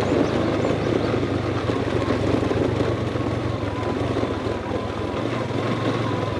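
Motorcycle engine running steadily at low speed while riding a dirt road, with a thin steady whine coming in about a second and a half in.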